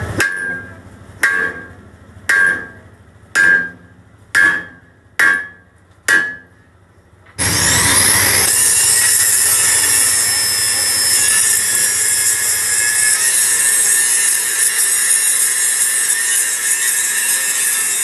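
A series of sharp metal strikes, about one a second, each ringing briefly. About seven seconds in, an angle grinder starts and grinds steadily and loudly on the steel of a truck axle housing, dressing the weld beads of a cracked-axle repair.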